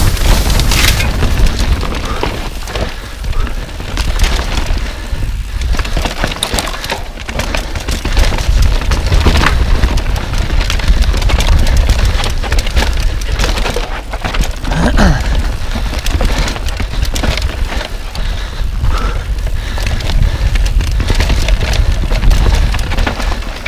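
Mountain bike descending a rough dirt trail at speed. Wind rumbles heavily on the action camera's microphone, while tyres run over dirt and roots and the bike rattles with frequent sharp knocks over bumps.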